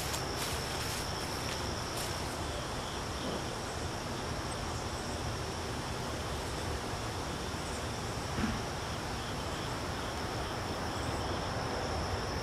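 Steady high-pitched insect trill, cricket-like, over outdoor background noise. A few light clicks come in the first two seconds and a soft knock about eight and a half seconds in.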